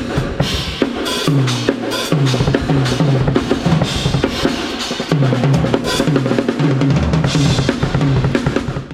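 Pearl Short Fuse compact drum kit being played: a busy pattern of bass drum, snare and cymbals, with runs of fast low drum strokes whose pitch drops after each hit.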